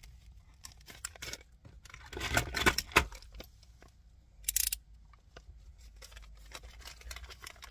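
Hands rummaging and handling things: quiet rustling with scattered small clicks, and a short sharp rustle about four and a half seconds in.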